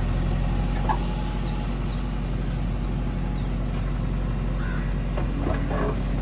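JCB 3DX backhoe loader's diesel engine running steadily while it digs, with a few light knocks about a second in and again near the end.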